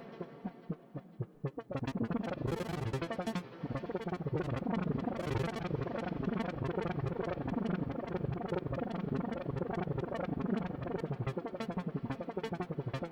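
Akai AX60 analog synthesizer playing a patch of many short, overlapping pitched notes with reverb and delay trails.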